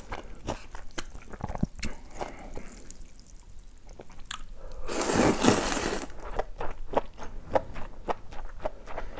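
Close-up eating sounds of cold buckwheat noodles (yeolmu naengmyeon): wet chewing with many small mouth clicks, and one loud slurp of noodles about five seconds in, lasting about a second.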